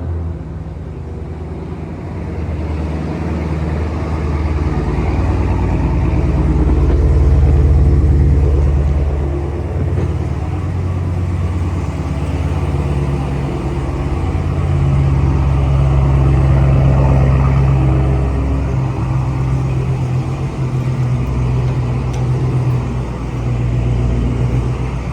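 Dodge Hellcat's supercharged 6.2-litre HEMI V8 idling just after a remote start, its note swelling and easing back a couple of times, the weird noise the owner hears on remote start.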